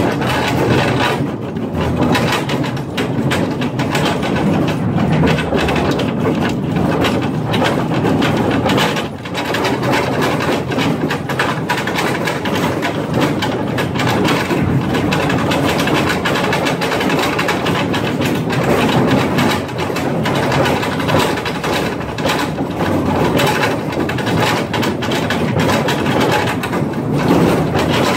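Mine train cars rattling and clattering along a narrow rail track, a steady, loud din of dense metal knocks and clanks from a bumpy ride.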